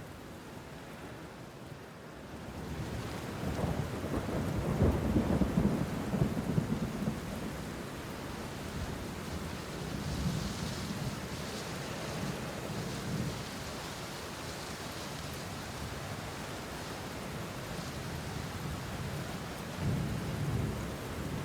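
A low, rolling rumble that swells about three seconds in and is loudest for a few seconds, then rolls on more faintly and swells again near the end, over a steady hiss like rain.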